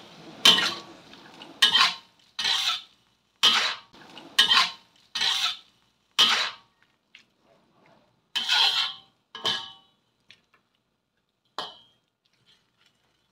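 Metal spatula scraping and turning banana blossom in a metal wok: about nine short scrapes roughly a second apart, some with a brief metallic ring, then a pause and one lighter scrape near the end.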